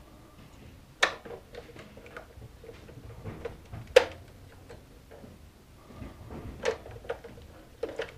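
Hard plastic clicks and knocks as print heads are pressed into an HP Designjet 500 plotter's carriage, with light handling sounds between them. A sharp click about four seconds in is the loudest, with others about a second in and near the end.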